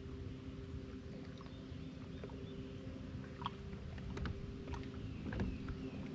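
Fishing boat on the water: a steady low hum with scattered light ticks and a few short high chirps.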